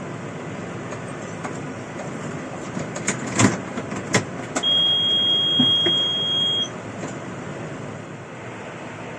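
Combine harvester running steadily with a few sharp knocks about three to four seconds in. A steady high-pitched tone then sounds for about two seconds.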